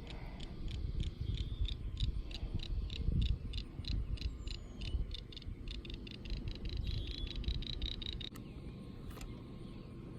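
Rapid, even clicking, about four clicks a second, that stops abruptly about eight seconds in, over a steady low rumble of wind on the microphone.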